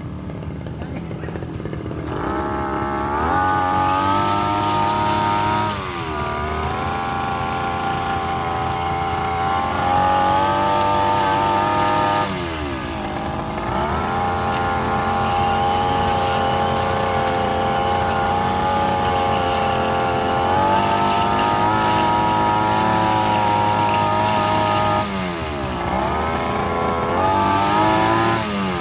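Backpack brush cutter's small engine running low for the first two seconds, then revving up to cutting speed and holding there, dropping back and climbing again several times as it trims weeds.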